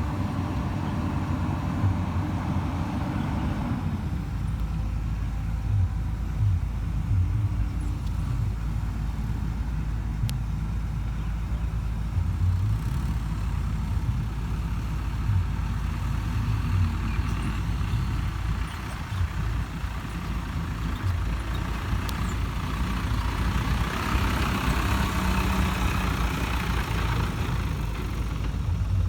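Heavy diesel engine of a Hyundai Robex 220-9SH excavator running steadily under load while it works, its note shifting about four seconds in. A rushing hiss rises for a few seconds near the end.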